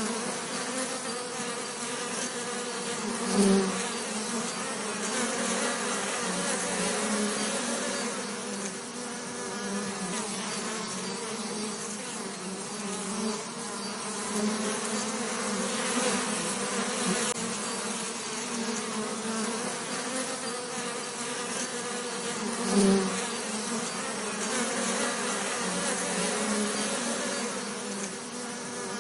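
Bees buzzing in a steady, wavering drone, with a brief louder buzz about three and a half seconds in and again a little after twenty seconds.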